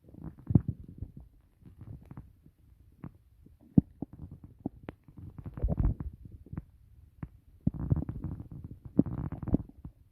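Human stomach growling loudly: irregular gurgles and rumbles broken by sharp pops and clicks. The loudest bursts come about half a second in, around the middle and near the end.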